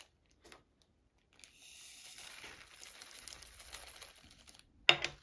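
Faint rustle of a small plastic bag and round diamond-painting drills as they are tipped out of a small plastic tray, followed by one sharp clack near the end as the emptied tray is set down on the table.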